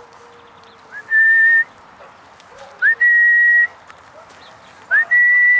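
Three loud whistles to a dog, each a quick upward slide into a held high note about half a second long, spaced about two seconds apart.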